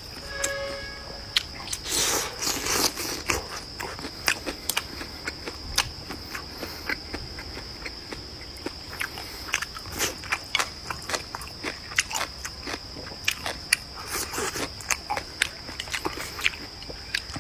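A person eating close to the microphone: chewing and biting with frequent sharp, crunchy clicks. A steady high-pitched whine sits underneath throughout.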